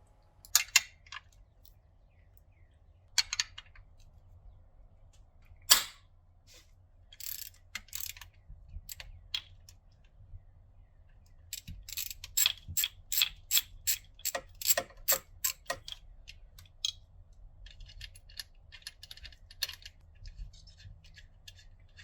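Socket ratchet clicking as the factory pitch stop mount bolts are worked loose with a 14mm socket and wrench. First come a few separate sharp clicks and knocks, then a quick even run of clicks, about four a second, for several seconds past the middle. Fainter, faster clicking follows near the end.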